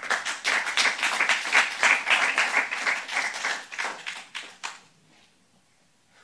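An audience clapping, dying away about five seconds in.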